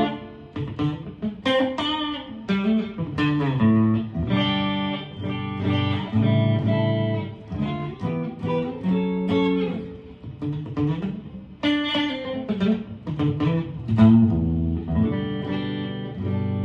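Aria Pro II RS Wildcat electric guitar on a clean tone, with the middle pickup selected alone, picking a continuous phrase of single notes and partial chords. The tone is bright and clear.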